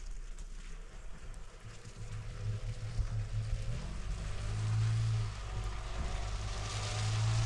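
Pickup truck engine approaching on a gravel track, a low hum that grows louder as it comes closer, with tyre noise on the gravel rising near the end.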